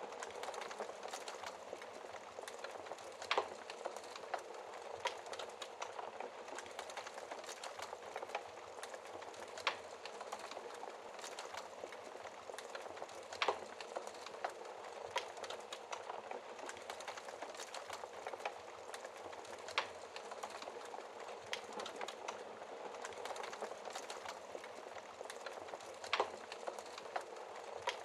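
Wood fire crackling in a fireplace: a steady hiss of small crackles with a sharper pop every few seconds, about six in all.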